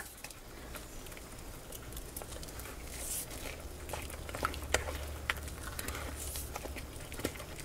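Wire whisk stirring a thick cake batter in a glass bowl: faint, irregular light taps and wet stirring sounds.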